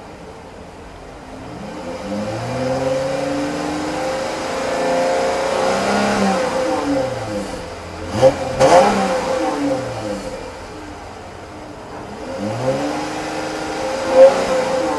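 Chrysler 300's 3.6 L Pentastar DOHC V6 revved in park: the engine climbs and falls back twice, over a steady thin whine. A few sharp knocks sound about halfway through.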